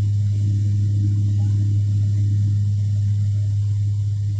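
Cabin noise of a SpiceJet Bombardier Q400 turboprop in flight, heard from a window seat beside the engine: a steady, loud, deep propeller drone with a thin high whine above it.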